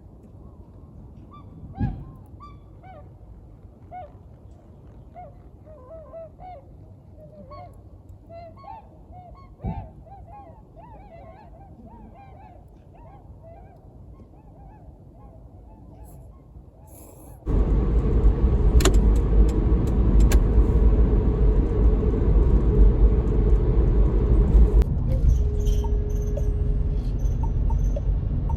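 A flock of waterfowl honking: many short overlapping calls, with two louder knocks in between. About two-thirds of the way through it cuts abruptly to the loud, steady low rumble of a car driving on the road.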